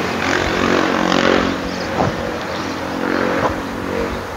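Street traffic with a motorcycle engine running, and two light knocks about two seconds and three and a half seconds in.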